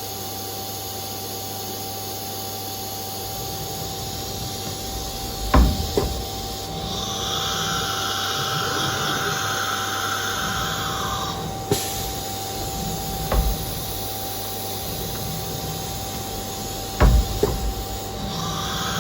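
CNC router's 12-tool automatic tool changer cycling over a steady machine hum: sharp clunks as tools are released and clamped in the spindle, and a high spindle whine that starts, holds for about five seconds and stops. More clunks follow, and the spindle whine starts again near the end.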